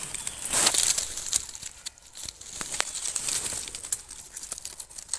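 Dry leaf litter rustling and crackling under hands as mushrooms are dug from the forest floor and trimmed with a knife: a run of irregular small snaps and crinkles, busiest in the first couple of seconds.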